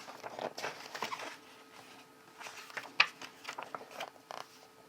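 Paper booklets and documents being handled: soft rustling with scattered light clicks and taps, and one sharper click about three seconds in.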